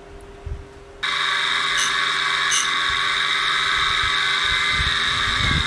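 AR5 tool and cutter grinder switched on about a second in, its motor and grinding wheel running with a steady high whine, started up to sharpen a drill in a conical grinding jig. Two short clicks come shortly after it starts.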